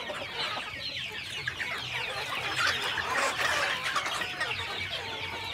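Large flock of chickens, hens, roosters and young birds, clucking all at once in a dense, continuous chorus, a little louder about halfway through.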